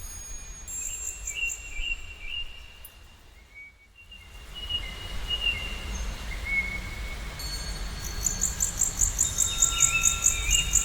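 Several songbirds singing: clear whistled phrases that rise and fall, and in the last few seconds a rapid high trill. These sit over a low steady rumble. The whole sound drops almost away about four seconds in, then comes back.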